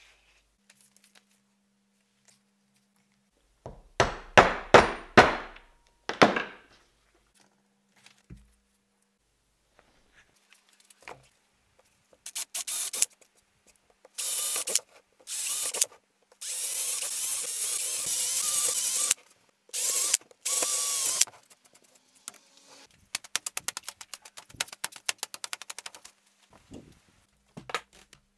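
Electric drill boring holes near the rim of a wooden shield, run in a series of bursts, the longest about two and a half seconds. Earlier there is a quick run of sharp knocks, and near the end a rapid clicking.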